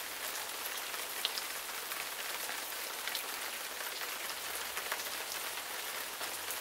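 Steady rain falling on a surface, a dense even hiss with a few louder single drops ticking through it.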